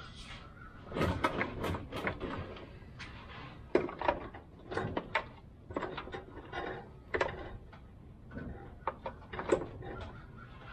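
Irregular knocks, clicks and short scrapes of hands and tools working at a van's fuel tank and its mounting straps from underneath, with two sharper knocks, one about four seconds in and one near the end.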